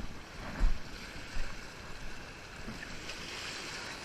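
Wind on the microphone and water washing at the shore, with two low bumps in the first second and a half.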